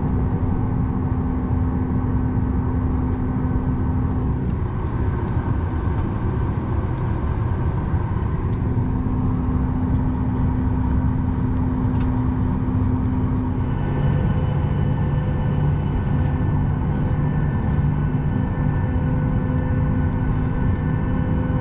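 Steady cabin hum inside a Boeing 737 MAX 8 waiting at the gate, with several steady tones over a dense low rumble. About two-thirds of the way in, a new, deeper hum and higher tones join as the aircraft's machinery changes.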